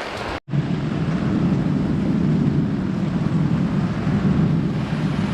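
Steady, deep-toned rushing noise of pouring rain, broken by a brief silent gap about half a second in.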